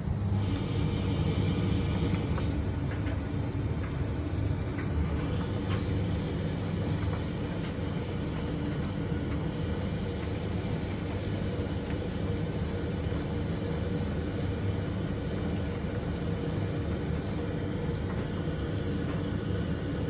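Simpson Eziloader SDV401 4 kg clothes dryer running: a steady hum and rumble from the motor and turning drum as a load of towels tumbles inside.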